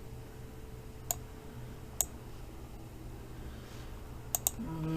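Computer mouse clicking: a single click about a second in, another two seconds in, then a quick double-click near the end, as a sound file is opened.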